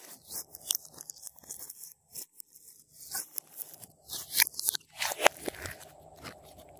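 Hands kneading, pressing and stretching thick slime, giving irregular sticky clicks and crackles, with a few louder pops about four and five seconds in.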